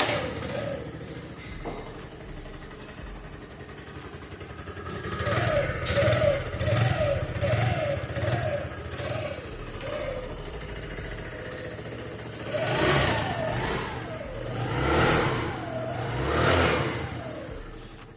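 Suzuki GSX-R 125's single-cylinder 125 cc engine idling, then blipped about six times in quick succession. Near the end it is revved harder three times, each rev rising and falling away.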